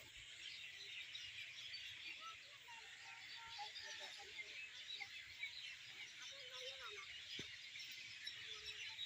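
A flock of small birds chirping in trees at evening, a faint, dense chorus of many overlapping calls.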